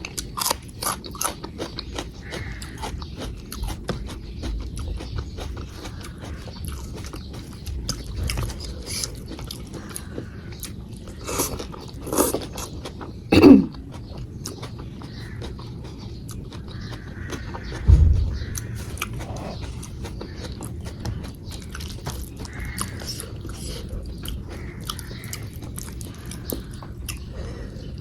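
Close-up eating sounds: chewing with many small wet mouth clicks while eating a meal of rice, dal and vegetables. A louder short sound comes about halfway through, and a low thump a few seconds after it.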